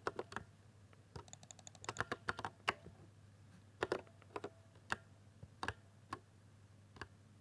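Keys on a 60% keyboard being pressed, each giving a short click: a quick run of keystrokes about a second in, then single presses spaced out.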